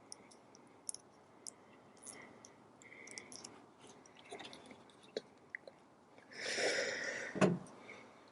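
Scattered small clicks and handling noises, then a scraping rustle about six seconds in, ending in one sharp knock.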